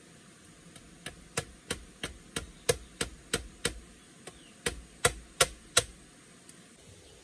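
Machete striking a bamboo pole: a run of about a dozen sharp chops, roughly three a second, with a short pause a little past the middle.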